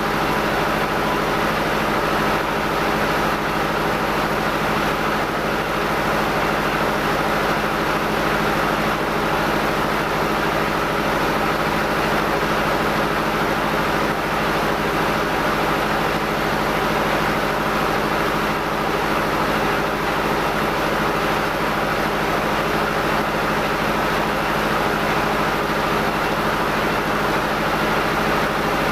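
Rice milling machinery, an old N50 husker and a rice polisher, running steadily: a constant hum with an even rushing noise over it that does not change.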